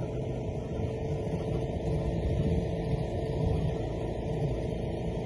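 A steady low mechanical rumble with a faint hum, like an engine running.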